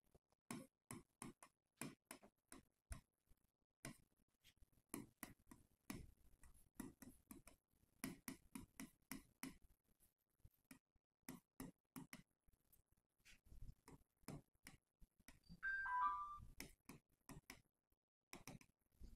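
Faint, irregular taps and clicks of a stylus on an interactive smart board's screen as a heading is handwritten. About three-quarters of the way through, a brief high chirp of two or three notes is the loudest sound.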